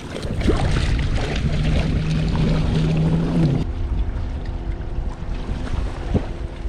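Wind buffeting the microphone over the steady drone of a boat engine, whose tone shifts about three and a half seconds in.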